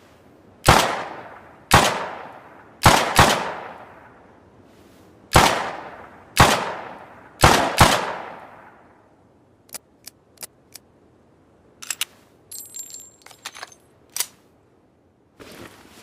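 Homemade revolver sound effect: eight sharp gunshot-like bangs, each with a long echoing tail, several in quick pairs. These are followed by a scatter of small sharp clicks and a brief metallic jingle.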